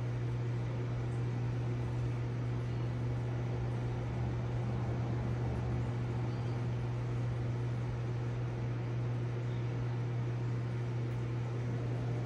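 Steady low hum of a reef aquarium pump, a constant drone with a wash of water and motor noise above it that does not change.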